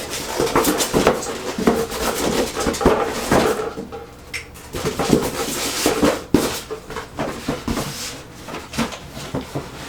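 Irregular clicks, taps and rustles of a power supply's cardboard box and packing being handled and unpacked.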